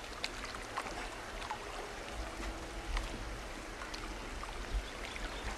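Swimming-pool water lapping and faintly splashing around swimmers, with a few small sharp ticks and a low rumble underneath.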